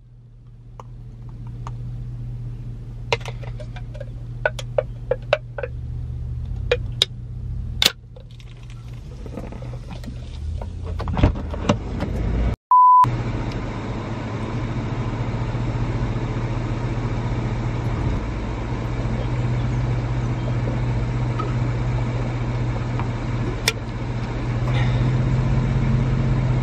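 Steady low hum of a car's engine idling, heard inside the cabin, with scattered small clicks and knocks in the first half. About halfway through the sound drops out briefly and a short one-tone beep sounds, after which the hum continues steadily.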